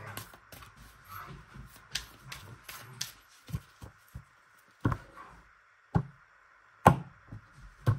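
A tarot deck being shuffled and handled in the hands with soft, quick clicking, then several sharp taps as the deck and cards are knocked and laid down on a tabletop, the loudest near the end.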